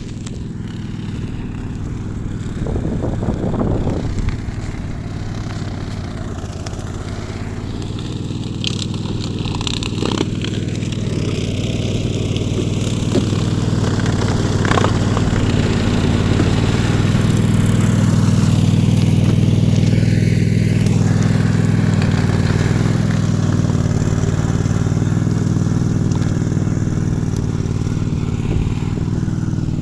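Small petrol engine of a grass-cutting machine running steadily at working speed, getting a little louder through the middle, with occasional scrapes and clicks.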